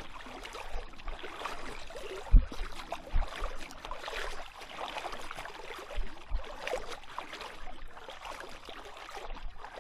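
Shallow creek water rippling and splashing around an inflatable paddle board, with a few short, dull low thumps; the loudest comes about two and a half seconds in.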